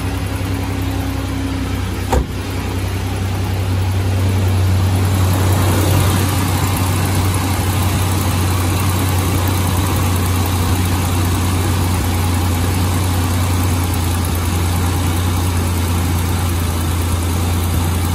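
Ford Ranger's newly installed replacement engine running at a steady idle just after its first start. A single sharp knock sounds about two seconds in, and the engine grows louder from about four seconds on.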